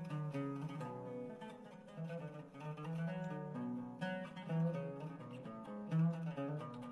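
Oud playing an instrumental melody of short plucked notes over a low bass part, the introduction before the singing begins.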